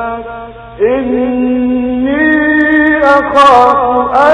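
A man chanting Quran recitation in the melodic tajweed style, holding long drawn-out notes. After a brief pause for breath just under a second in, his voice resumes and steps up in pitch about two seconds in. Hissing consonants come near the end.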